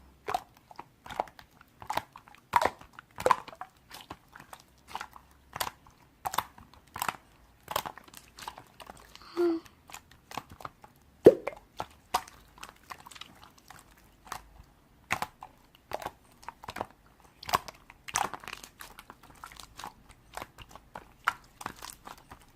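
Irregular, crisp close-up clicks and crunches, about two or three a second, with one sharper click about eleven seconds in.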